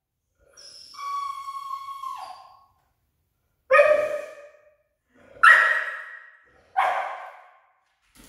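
A young dog gives one long high-pitched whine that drops at the end, then three sharp barks about a second and a half apart.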